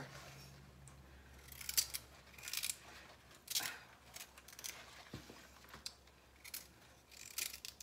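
Hand vegetable peeler scraping the tough skin off a raw kohlrabi-like bulb in a series of short, irregular strokes.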